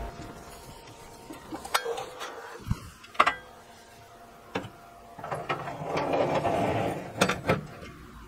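Wire oven rack scraping and clinking on its metal runners as it is slid in and out, with small metal parts on wire hooks rattling. A few sharp metal clicks, the loudest about three seconds in and two close together near the end, with a longer scrape just past the middle.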